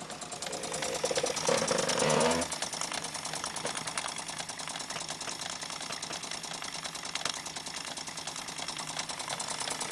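Working model machine-shop machinery running: a miniature horizontal engine with its flywheel driving belts and line shafting, making a fast, even mechanical clatter. A louder pitched sound stands out briefly from about a second in.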